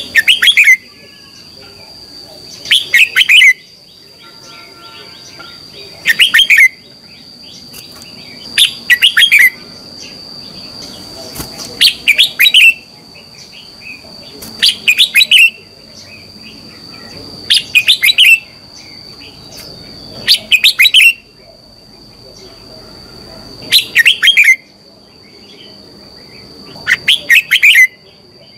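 Red-whiskered bulbul singing short, loud song phrases, about one every three seconds, ten in all. A steady high-pitched whine runs underneath.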